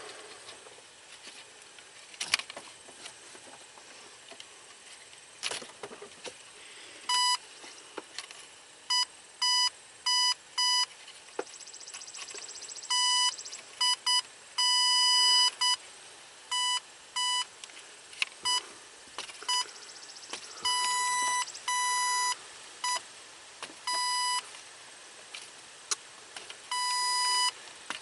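Power Probe ECT2000 open/short locator beeping with a steady high tone in irregular bursts that cut in and out as the wiring harness is flexed, starting about a quarter of the way in: the tool signalling that it is right at the broken wire. A few sharp handling clicks come before the beeping.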